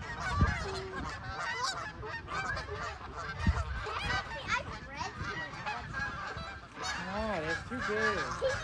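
A flock of geese honking as they take off and fly over, with many short calls overlapping without pause. A low thump comes about half a second in and another near the middle.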